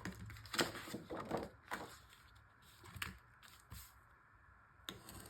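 Paper being handled and marked: a series of short scrapes and rustles, most of them in the first two seconds, with a few more later.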